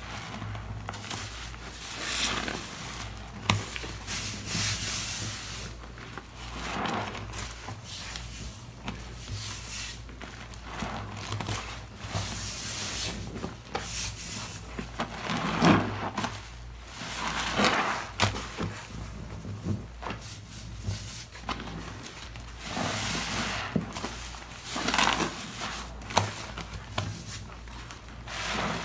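Soaked foam sponges squeezed by gloved hands in a basin of soapy, foamy solution: wet squelching with the fizz and crackle of suds, each squeeze a swell of sound every couple of seconds.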